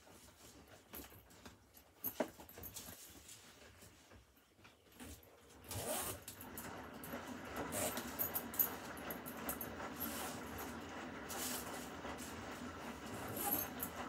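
Beko front-loading washing machine in its wash cycle: quiet at first with scattered clicks and knocks, then about six seconds in the drum noise swells as water and laundry churn and tumble inside it.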